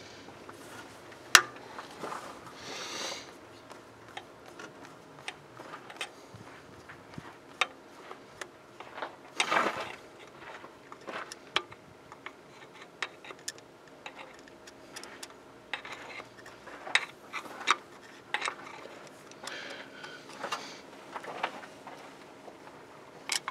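Screwdriver clicking and scraping on the metal of a carburettor as its jets are unscrewed, with scattered small metal clinks and a sharp click about a second in.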